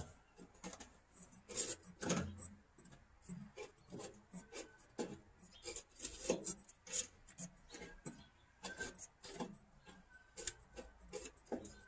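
Light, irregular clicks and scrapes of small parts being handled and fitted on an electric windshield wiper motor, about one or two small knocks a second.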